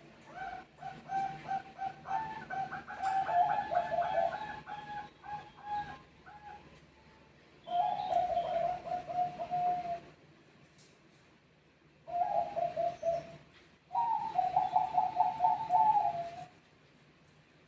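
Zebra doves (perkutut) cooing and answering one another in rapid phrases of short repeated notes. There is a long phrase at the start, then three shorter ones with brief pauses between.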